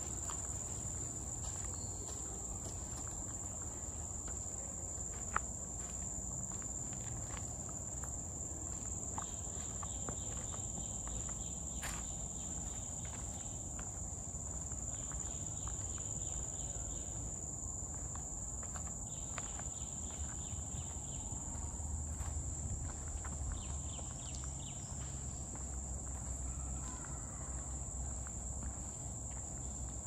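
A steady high-pitched insect drone, with a second insect call pulsing on and off now and then, over a walker's footsteps on a park trail.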